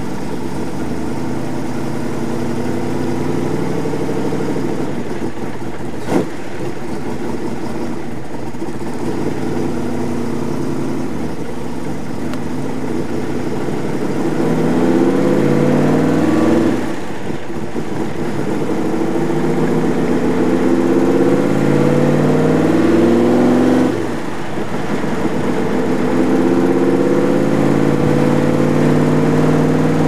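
Roush 427SR V8 in a Superformance MkIII Cobra roadster, heard from the passenger seat while driving. The engine runs steadily at first, then climbs in pitch under acceleration, drops abruptly twice as the gears change, and settles into a steady cruise; a single sharp click about six seconds in.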